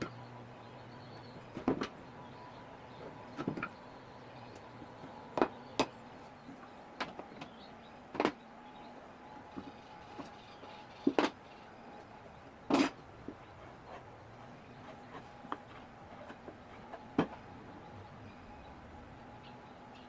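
About a dozen sharp knocks and clicks at irregular intervals, the loudest near the middle, over a faint steady hum.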